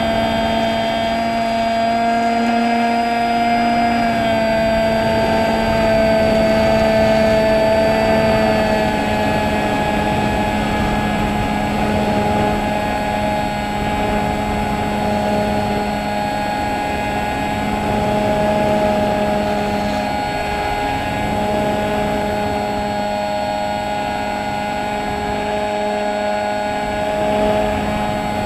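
Electric motor and propeller of a small battery-powered fixed-wing drone, heard from on board: a steady whine of several held tones over wind noise, its pitch stepping slightly down about four and nine seconds in.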